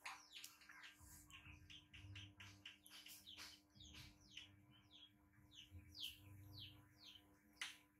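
Faint birds chirping: many short, quick, falling chirps, several a second, over a low steady hum.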